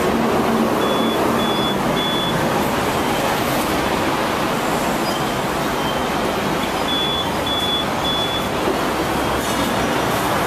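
Hong Kong double-decker tram running, with a steady rumble and rattle of wheels on rails heard from on board. Two sets of three short high beeps cut through it, one about a second in and one about seven seconds in.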